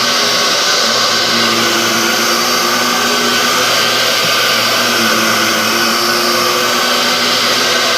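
Dyson DC07 upright vacuum cleaner running while vacuuming a floor: a steady motor hum under a constant rush of air.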